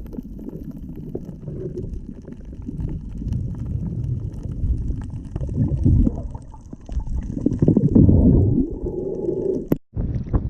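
Muffled water sloshing and churning around a GoPro in its waterproof housing, in surges. It cuts out briefly near the end.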